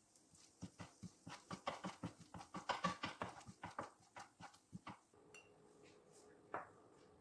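Knife chopping on a cutting board: a run of quick, even strokes, about four or five a second, that stops about five seconds in.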